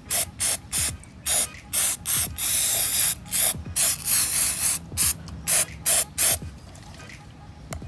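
Aerosol can of brake cleaner sprayed in a quick series of short hissing bursts, with a couple of longer blasts in the middle, to clean dirt off the intake parts. The spraying stops a little after six seconds.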